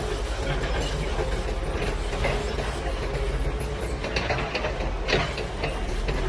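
Doosan 255LCV crawler excavator's diesel engine running steadily under a low rumble, with scattered clatter and knocks as it handles concrete debris.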